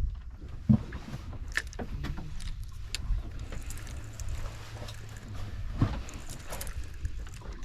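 Boat noise: a steady low rumble with scattered knocks and clicks, the loudest a sharp knock under a second in and another near six seconds in.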